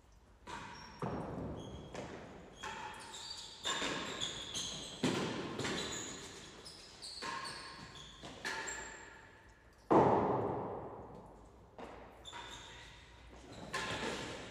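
Real tennis serve and rally: the hard ball struck by rackets and knocking off the court's walls, sloping penthouse roof and floor, each impact ringing on in the echoing court. The sharpest, loudest knock comes about ten seconds in.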